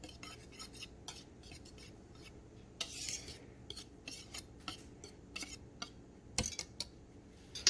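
A kitchen utensil stirring dry flour and spices in a mixing bowl, with repeated irregular scrapes and light clicks against the bowl.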